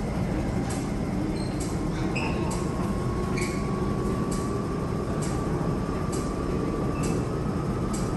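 MTR SP1900 electric train rumbling through the tunnel behind the platform screen doors, its wheels clicking over the rail joints about twice a second. A faint steady whine comes in about two seconds in.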